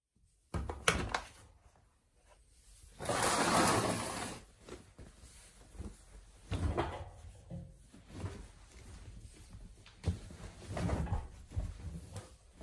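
White towels being loaded by hand into the drum of a front-loading washing machine: soft knocks and thuds against the drum and door, with fabric rustling. There is a sharp knock about half a second in and a loud rustle about three seconds in.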